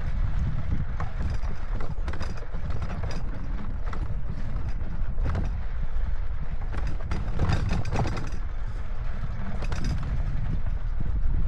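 Mountain bike rolling over a rocky dirt trail: irregular clicks, knocks and rattles from the bike and the bouncing camera mount as the tyres hit stones, over a steady low wind rumble on the microphone.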